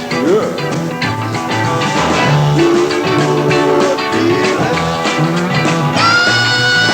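Live rock band playing, with a repeating bass line and guitar, and a long held note near the end.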